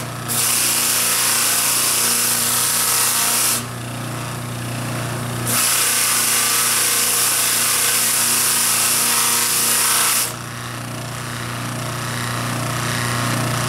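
Flap sander wheel spinning on an electric bench motor with a steady hum, sanding a carved wooden figure to soften its edges and clean dirt off the ridges. The carving is pressed against the flaps twice, about three seconds and then, after a two-second break, about five seconds, each time giving a loud hissing rasp; near the end only the motor hum is left.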